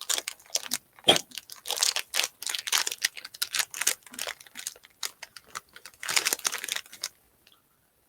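Plastic snack wrapper being torn open and crinkled, a rapid run of crackling rustles that stops about seven seconds in.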